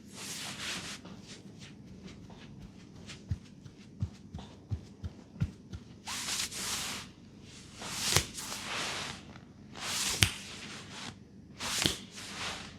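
Hands rubbing and sweeping over hair and scalp in a head massage, about five swishing strokes, with scattered sharp clicks or taps, the loudest about eight and ten seconds in.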